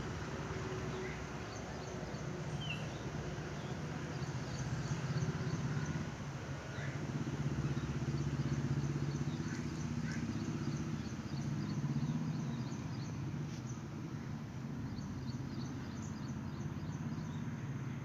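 Small birds chirping and trilling repeatedly over a steady low mechanical hum that swells and eases a few times.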